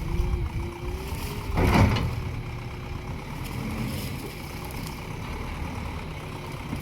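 Diesel engine of a JCB 3DX backhoe loader running steadily, with a loud rush of noise lasting about half a second, starting about one and a half seconds in.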